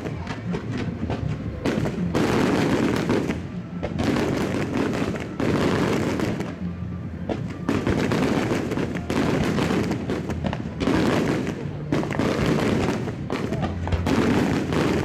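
Aerial fireworks shells bursting in a rapid, dense barrage: many overlapping bangs and booms that swell and ebb in waves every second or two.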